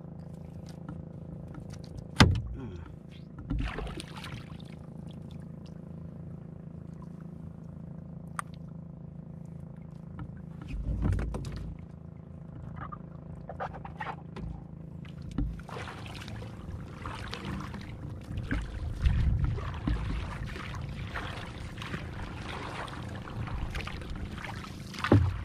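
Small outrigger canoe on calm sea: sharp knocks on the hull about two seconds in and again near the end, over a low steady hum. From about halfway a continuous splashing and sloshing of water alongside the hull sets in as the boat gets under way.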